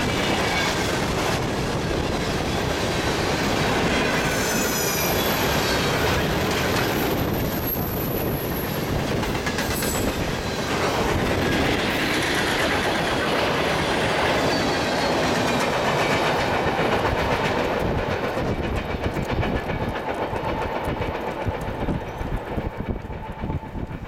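Freight train cars rolling past close by, steel wheels clacking over the rail joints, with a thin high squeal from the wheels on the curve about four to eight seconds in. The noise fades over the last several seconds as the end of the train pulls away.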